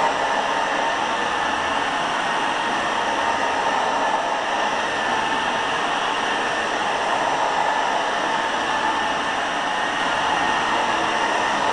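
Old Hoover carpet cleaner running, its motor giving a steady whining rush of air.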